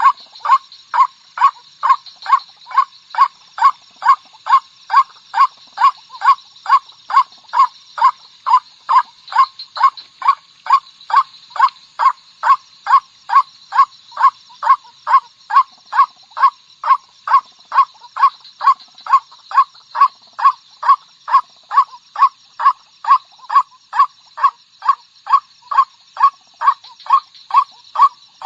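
White-breasted waterhen calling one short note over and over, evenly about twice a second without a break: a lure call for attracting waterhens.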